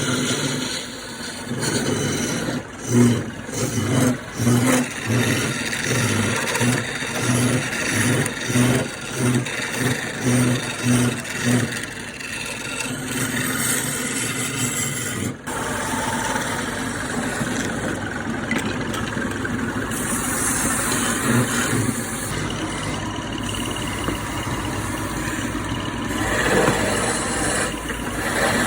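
A small electric power tool motor, switched on and off in a quick series of short pulses for several seconds, then running steadily.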